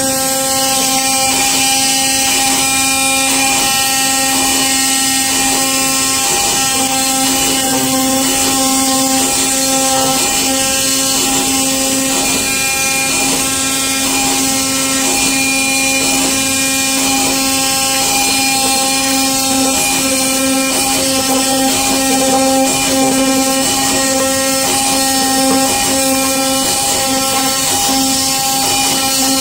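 CNC knife cutting machine for corrugated cardboard running: a steady hum with a hiss over it.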